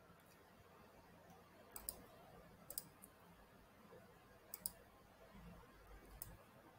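Faint computer mouse clicks, about five, some in quick press-and-release pairs, over near-silent room tone.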